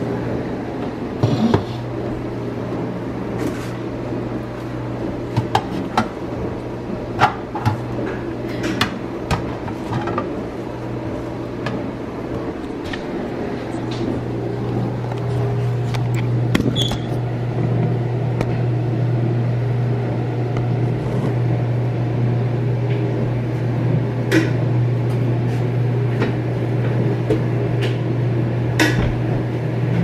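A steady low appliance hum, a little louder from about halfway through, under scattered clicks and knocks of things being handled on a kitchen counter.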